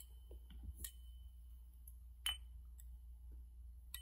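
Quiet room with a steady low hum and a few faint, sharp clicks and light clinks of small objects being handled, the clearest a little past two seconds in.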